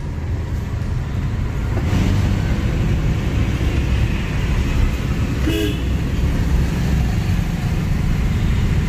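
Diesel engine of a Tata Vista running under way, heard from inside the cabin as a steady low drone with road noise, while the car jerks through a lag that began after its tank was run dry of diesel. A horn toots once, briefly, about five and a half seconds in.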